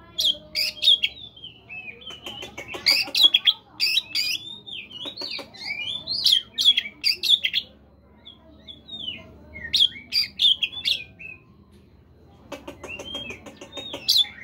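Oriental magpie-robin (kacer) singing: bursts of varied whistles and quick chattering phrases, easing to a few scattered notes past the middle, then loud chattering song again near the end.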